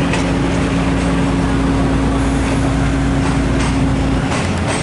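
Hitachi diesel multiple unit's diesel engine running with a steady, even drone. Near the end the drone cuts off suddenly and a rougher rumble takes over.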